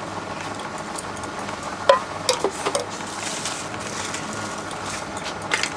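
Food-counter noise: a steady hiss with a few sharp clinks of a steel ladle against containers, about two seconds in and again near the end.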